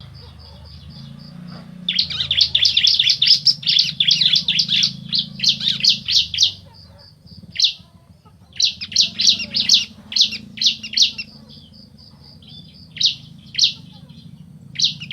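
Bar-winged prinias (ciblek), male and female calling back and forth in rapid, high-pitched chattering trills. The trills come in bursts of a few seconds, broken by pauses and single sharp notes, over a faint steady low hum.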